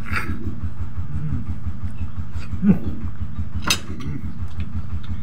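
A motor running steadily with a low, even throb. A short low sound comes about two and a half seconds in, and a sharp click a second later.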